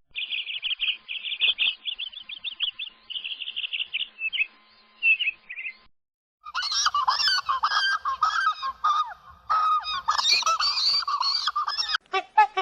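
Birds calling in two stretches: first rapid, high chirping for about six seconds, then, after a short break, a flock calling densely over one another. Near the end it cuts to a different, sharp call repeated in quick strokes.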